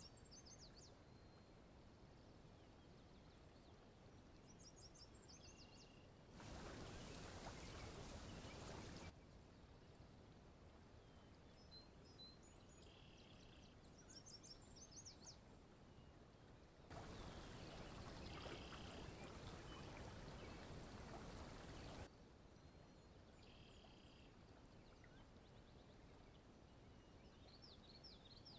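Near silence: faint background ambience with scattered short high chirps. Twice it is broken by several seconds of steady hiss that starts and stops abruptly.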